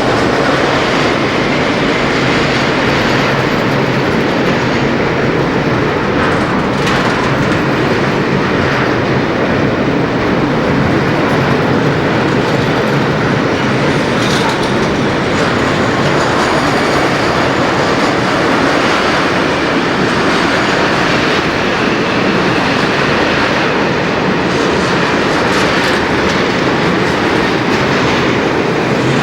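Freight train rolling past at steady speed, its wagon wheels clattering over the rail joints in a continuous loud rumble.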